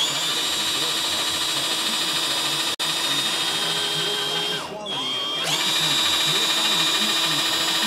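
Drill press spinning a small bit with a steady high whine, drilling out a rivet post on the die-cast metal base of a toy car to take it apart. About five seconds in the motor slows briefly and then spins back up.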